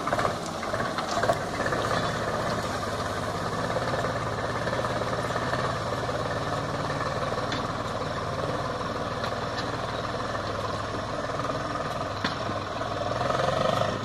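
Diesel farm tractor engine running steadily while it pulls a tine cultivator through grass and soil.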